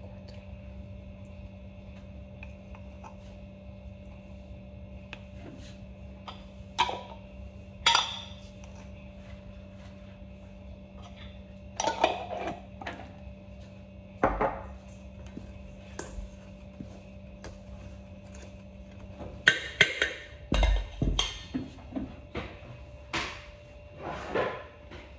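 Kitchen clatter of a wooden spoon and a glass jar knocking and clinking against a large stainless steel mixing bowl as an ingredient is scooped in. There are a few separate knocks, then a quicker run of knocks and clatter in the last few seconds. A steady low hum underneath stops about 19 seconds in.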